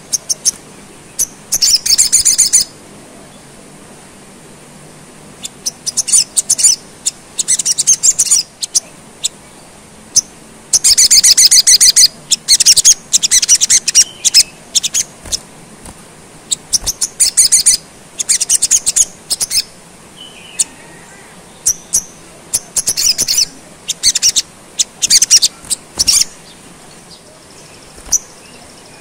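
Olive-backed sunbird singing: bursts of rapid, high-pitched trills and sharp chirps, repeated every second or two and thickest about halfway through.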